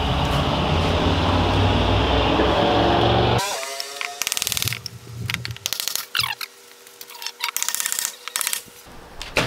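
A loud low rumble for about three seconds that cuts off, then several short bursts of a power drill running.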